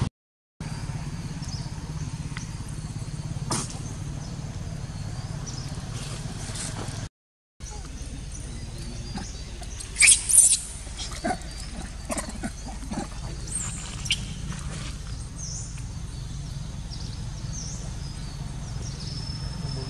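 Macaques giving a couple of short, loud, high-pitched squeals about halfway through, followed by a few smaller sharp calls, over a steady low outdoor rumble. The sound cuts out completely twice for a moment.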